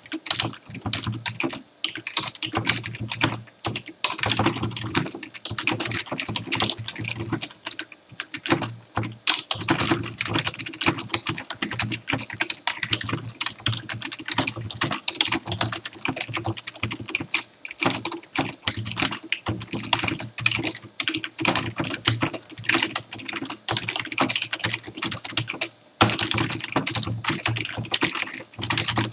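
Fast continuous typing on a computer keyboard, keys clattering in quick runs with a few brief pauses.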